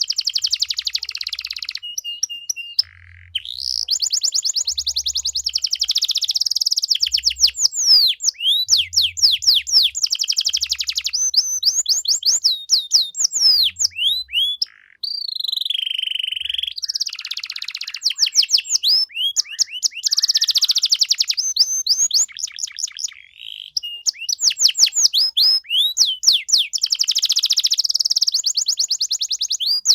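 Domestic canary singing a long, fast-delivered song of rapid trills and quickly repeated rising high notes, broken by a few brief pauses.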